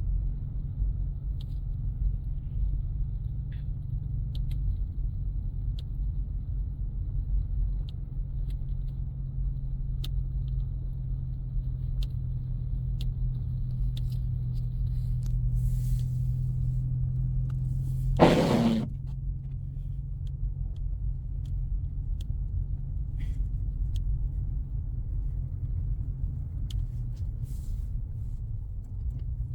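Steady in-cabin drone of a 2024 Ford Mustang EcoBoost's turbocharged four-cylinder engine and tyres driving slowly through deep snow. About two-thirds of the way through there is one brief loud noise, and after it the steady engine tone drops away.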